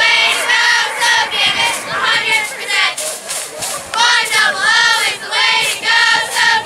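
A group of high-pitched voices chanting together in a steady rhythm of short phrases.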